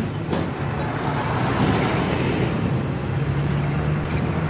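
A bus running along a rough unpaved dirt road, heard from inside at an open window: a steady low engine hum with tyre rumble and wind noise.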